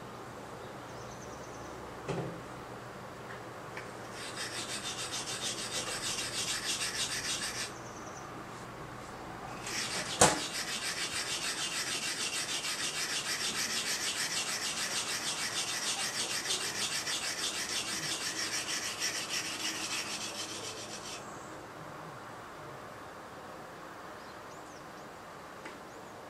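A hand-forged nata (Japanese brush knife) being sharpened on a whetstone: rhythmic scraping strokes of the steel across the stone. There is a short run of a few seconds, then a longer run of about ten seconds, with a single sharp knock as the second run begins.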